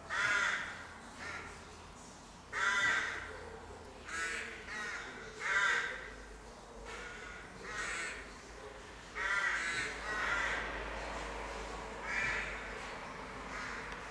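Rooks cawing at their nesting colony: a series of harsh, hoarse caws, roughly one every second or two, some in quick pairs.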